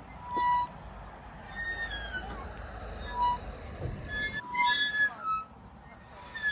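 Background music: a light melody of short, clear notes, over a low rumble that drops away about four and a half seconds in.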